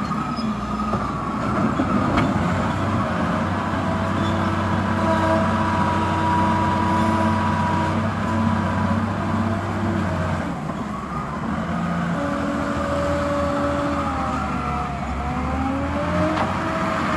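Caterpillar 950F wheel loader's diesel engine working under load as the loader drives into a dirt pile and fills its bucket. It changes pitch about ten seconds in, then rises and falls as the loaded bucket is raised near the end.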